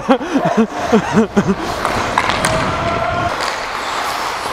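Ice skate blades scraping and gliding on rink ice. In the first second and a half a voice gives a quick run of short calls that rise and fall in pitch.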